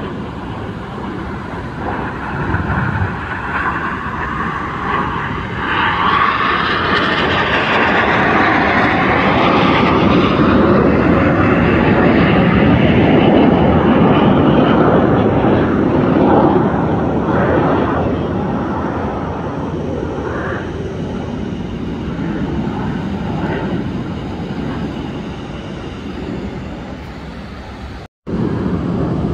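Display jets flying past: a loud engine roar that swells to a peak about halfway and then eases off, with a sweeping shift in pitch as they pass. The sound cuts out for an instant near the end.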